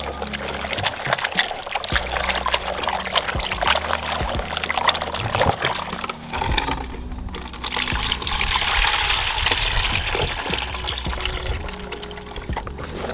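Hands swishing and rubbing chopped cocoyam pieces in a plastic basin of water, with small splashes. Past halfway, after a short pause, comes a steady pour as the starchy washing water is tipped off into another basin.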